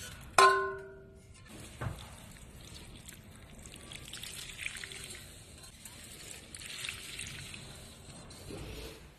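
Water trickling faintly while a potted plant is watered, with a single bell-like ring that fades over about a second, heard about half a second in, and a soft knock shortly after.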